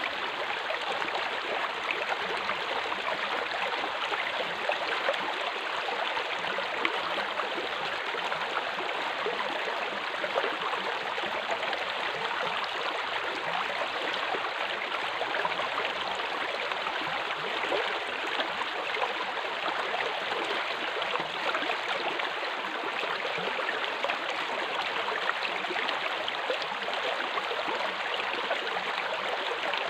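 Water rushing steadily along an open metal-plate aqueduct flume, a continuous even rush of flowing water.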